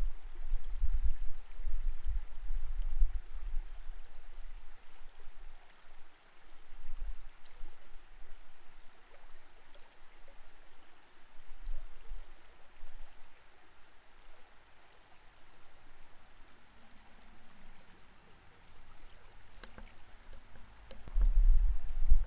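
Flowing creek water picked up by an underwater camera: a steady muffled hiss of moving water with irregular low rumbling surges, heaviest at the start and again near the end. A few faint clicks come just before the end.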